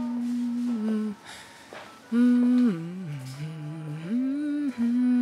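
A person humming a slow tune with long held notes. About two seconds in, the melody dips to lower notes and climbs back, ending on another long held note.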